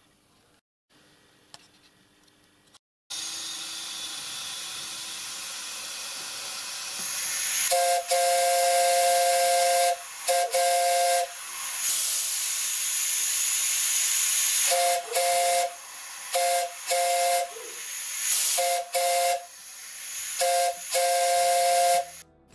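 Miniature locomotive's two-note chime whistle, built to the A4/Britannia drawing, test-blown on compressed air. A steady hiss of escaping air starts about three seconds in. Then the whistle sounds its chord in one long blast followed by a series of short toots.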